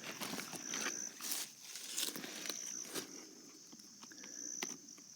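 Short crackling snaps and rustles as chicken of the woods mushroom shelves are broken off a tree by hand. Behind them, a steady high insect trill swells and fades every second or two.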